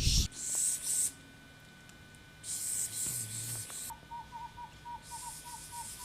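A series of about nine short, evenly spaced tooting whistles, roughly three a second, like a pygmy-owl's call, starting about four seconds in. Bursts of hiss come and go around it.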